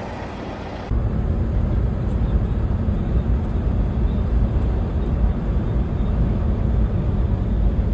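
Steady low rumble of a truck's engine and tyres heard from inside the cab while driving on the highway, starting about a second in; before it, a short stretch of softer open-air noise.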